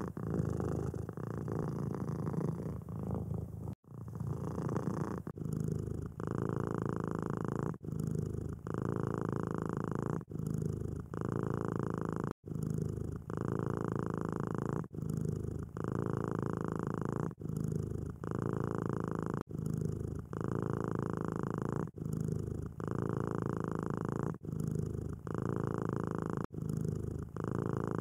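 Domestic cat purring close up, steady and low, breaking off briefly about once a second as the cat switches between breathing in and out.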